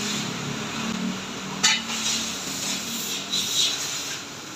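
Van being lowered on a workshop lift: a steady low hum with hissing, a sharp metallic click about one and a half seconds in and a bout of hiss near the end.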